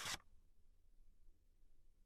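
Near silence: a short stretch of background music cuts off right at the start, leaving faint room tone.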